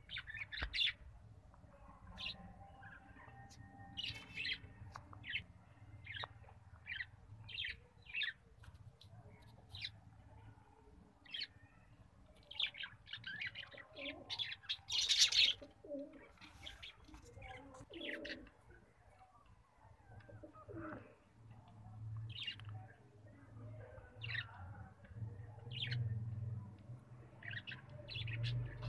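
Fantail pigeons cooing and flapping their wings, with a loud flurry of wingbeats about halfway through. Short high bird chirps come and go throughout.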